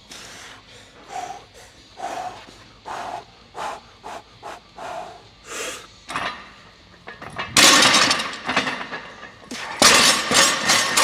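Barbell warm-up in a gym: a run of short, sharp sounds less than a second apart, then two loud stretches of clattering from the bar and weight plates in the last few seconds.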